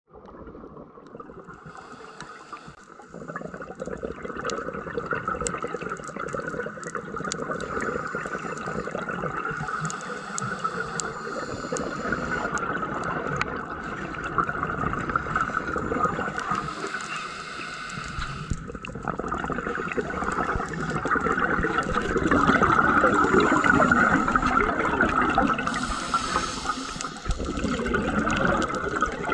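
Underwater sound picked up by a diver's camera in its housing: a continuous watery rush, with three bursts of hissing scuba exhaust bubbles.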